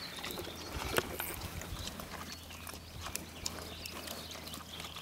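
Pigs moving about close by: faint, scattered knocks and rustles over a low steady background.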